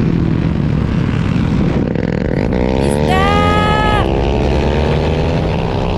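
Motorcycle engine running hard on track, heard from an onboard camera with wind rush, its pitch climbing about halfway through as it accelerates.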